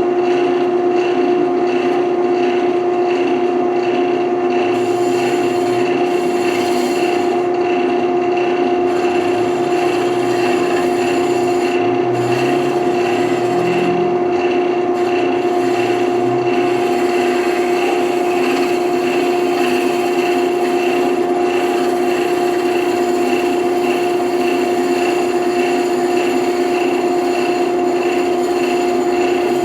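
Wood lathe running with a steady hum while a carbide-tipped turning tool scrapes and cuts the spinning wood.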